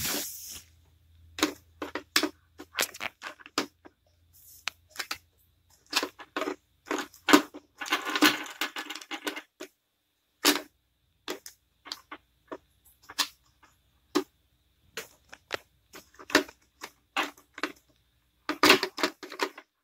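Frequent irregular clicks and light taps of Athearn HO scale plastic Maxi-I well cars being handled, set down and coupled on a wooden tabletop, with a longer rustling patch about eight seconds in.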